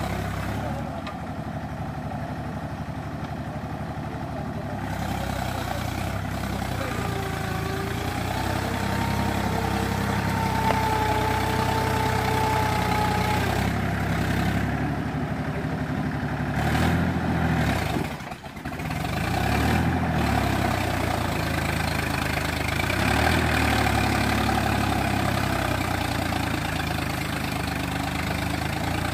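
Mahindra 275 tractor's three-cylinder diesel engine running under load as the bogged tractor tries to pull out of deep mud. Its note rises and then holds partway through, with a brief drop about eighteen seconds in.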